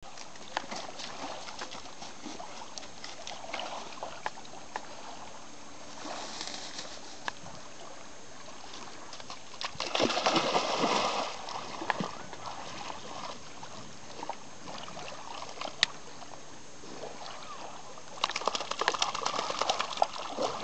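Serbian Defence Dog puppy splashing as it wades into lake water about halfway through, then paddling and splashing as it swims near the end, with scattered small clicks in between.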